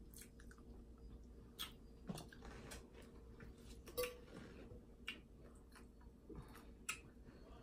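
Faint, scattered clicks and crackles of seafood shells being peeled and broken apart by hand, with soft chewing.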